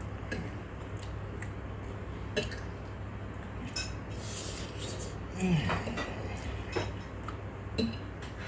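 Cutlery clinking against dishes while someone eats: a handful of short, separate clinks over a steady low hum.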